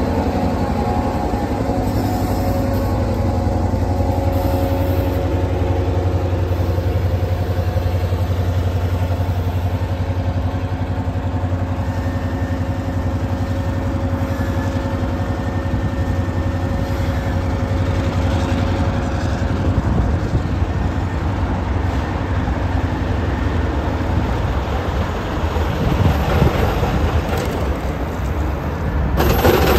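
EMD GP38-2 diesel-electric locomotive's 16-cylinder two-stroke EMD 645 engine running with a steady low drone while moving slowly with a string of covered hopper cars. A faint thin whine comes in about twelve seconds in and fades out around twenty seconds.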